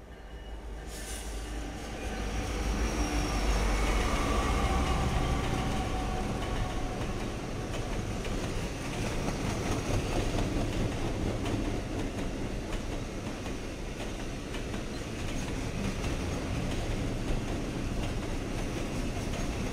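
Multi-unit consist of diesel-electric freight locomotives passing close by, their engines rumbling and their wheels running on the rails. The sound builds over the first few seconds as the lead units arrive, then holds steady.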